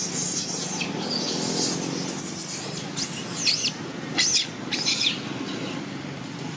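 Young long-tailed macaques giving shrill, pitch-bending screams in about five short bursts, which stop about a second before the end, over a steady low hum.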